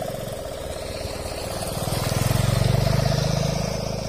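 Kite sendaren, a plastic-film (mika) ribbon hummer on a bow, droning in the wind with a fast pulsing buzz, swelling louder about two seconds in and easing off near the end. The ribbon is folded over yet still sounds fine.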